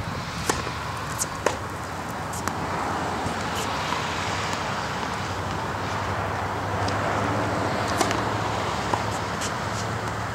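Tennis serve and a short rally: sharp pops of racket strings hitting the ball, and the ball bouncing on a hard court, spaced irregularly over several seconds, over steady background noise.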